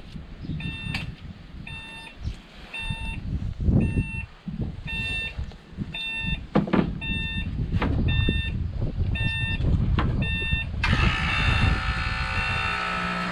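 Electronic warning beeper on a truck chirping steadily about one and a half times a second, with a few knocks. About eleven seconds in, a louder steady noise starts over it.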